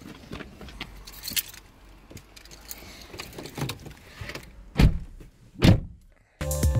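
Car door opened by its handle and someone getting in: latch clicks and rustling, then two heavy thumps near the end as the car doors shut. Electronic music with a steady beat starts just before the end.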